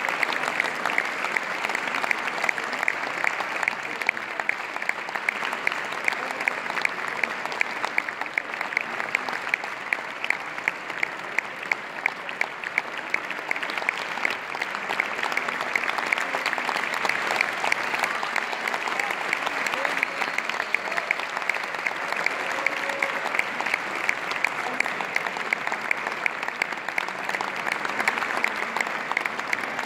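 Theatre audience applauding, with the clapping falling into an even rhythm of about two claps a second.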